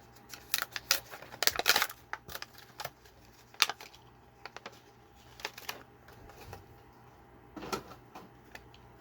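Hands opening a toy car's packaging: a run of sharp plastic clicks and crackles, densest between about one and two seconds in, then scattered clicks.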